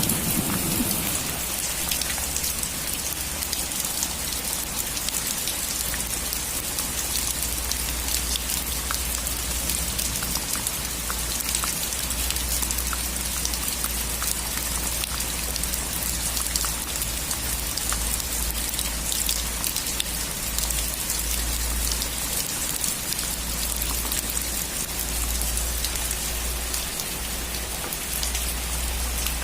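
Steady rain falling on a roof, a dense hiss dotted with many individual drop ticks. The tail of a thunder rumble dies away in the first second.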